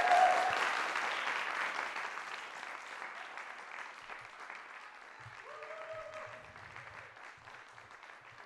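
Audience applauding, loudest at the start and dying away gradually, with a short cheer about six seconds in.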